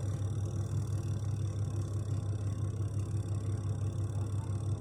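Twin-tub washing machine's spin-dryer motor running steadily with a low, even mains hum, turning again after its start capacitor was replaced.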